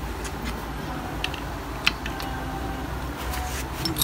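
A few sparse, light metallic clicks as the parts of a split Yamaha RX100 engine's gearbox are handled, over a steady low hum.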